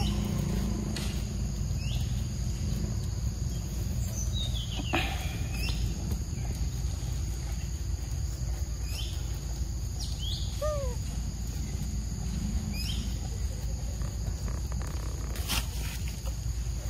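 Forest ambience: a steady high insect drone with scattered short chirping calls and a low rumble underneath. A single sharp click sounds near the end.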